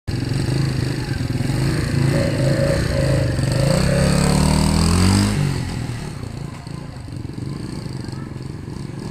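Rusi 125 motorcycle engine running, then revved once about four seconds in, its pitch climbing for a second or so before it falls back to a quieter idle.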